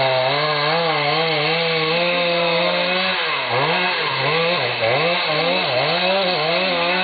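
Chainsaw running at high revs. From about three seconds in, its pitch dips and climbs back again and again as the engine speed rises and falls.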